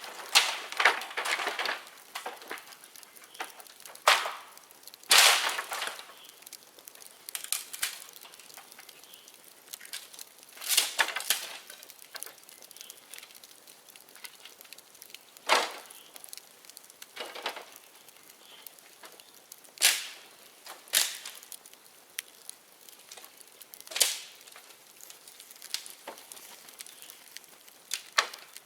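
Bonfire of dead bamboo burning, with a steady crackle and hiss broken by a dozen or so sharp pops and cracks at irregular intervals as heated bamboo segments split open.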